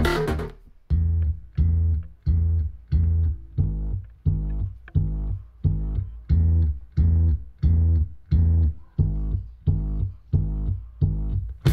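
Solo bass guitar line, evenly spaced plucked notes about one and a half a second, played back through a Klipsch The ONE II speaker.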